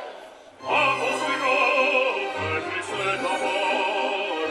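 Operatic baritone singing with instrumental accompaniment. A held note fades out, and a new phrase begins about a second in.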